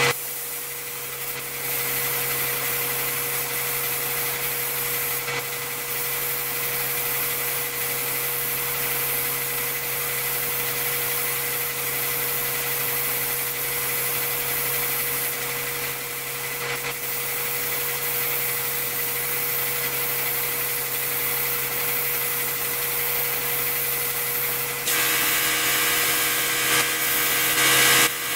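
Gravity-feed spray gun with a 1.8 mm tip spraying high-build primer: a steady hiss of compressed air, over a steady hum. The sound shifts slightly near the end.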